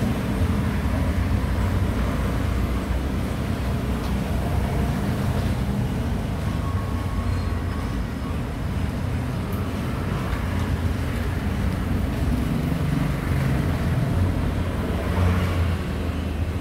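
Steady low rumble of road traffic and motor vehicles.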